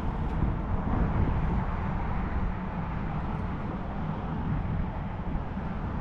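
Wind rumbling on the microphone over open water: a steady, wavering rumble with no distinct events.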